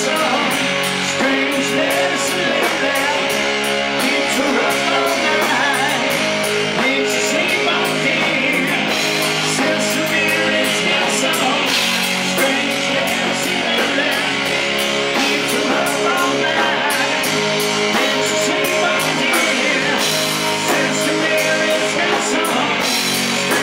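Rock band playing live: electric guitars, bass and drums with cymbal hits, picked up on stage from the amps and monitors rather than the mixed PA.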